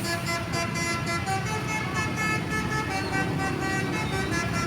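Indonesian bus telolet horn: a multi-tone air horn sounding a run of short notes that change pitch every fraction of a second, over a low engine rumble.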